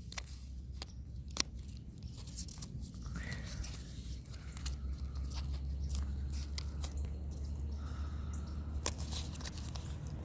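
Scattered sharp clicks and light rustling from something being handled close to the microphone, over a steady low hum.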